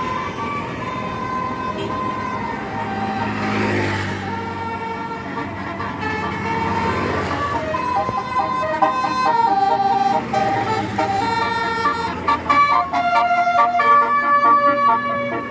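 Indonesian 'telolet basuri' multi-tone bus horns sounding loudly. They begin as held steady tones, then from about halfway play a quick tune of short notes changing pitch. A bus engine's rumble swells a few seconds in.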